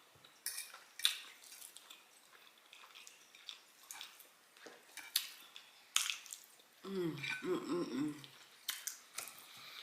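Close-miked eating: chewing with wet mouth clicks and lip-smacks scattered through. About seven seconds in there is a short, low, wavering hum from the eater.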